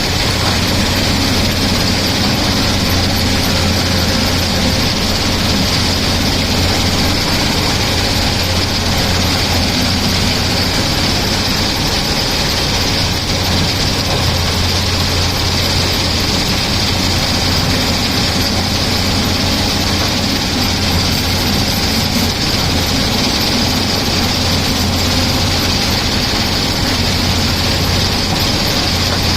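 Tata Hitachi excavator's diesel engine running steadily with a deep, even hum, joined by a high steady hiss.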